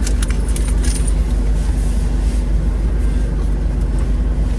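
Car engine idling, a steady low rumble heard from inside the cabin, with a few light clicks in the first second.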